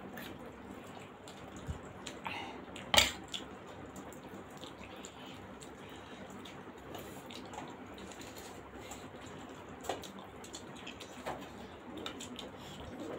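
Close-up eating sounds of steamed momo dumplings being bitten and chewed. A metal spoon gives one sharp clink against a steel bowl about three seconds in, with a few softer clicks later.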